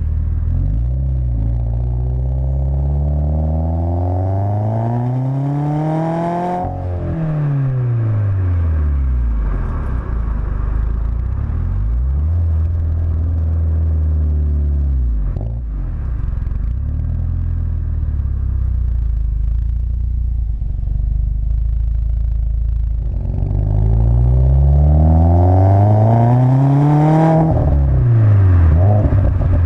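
Exhaust note of a 2015-on Subaru WRX's turbocharged 2.0-litre flat-four through an Invidia catted J-pipe and Agency Power quad-tip titanium cat-back. The revs climb hard for about six seconds, then break off suddenly as the throttle closes and fall away into a steady cruise. Near the end the revs climb again and drop off sharply.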